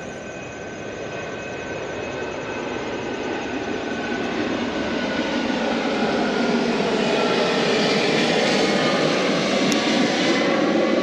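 Airplane flying low overhead, its engine roar growing steadily louder over several seconds and then holding near its loudest.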